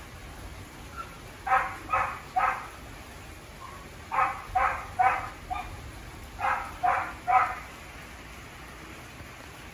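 Dog barking in three bursts of three quick barks each, about a second and a half to two seconds apart, over a steady hiss of rain.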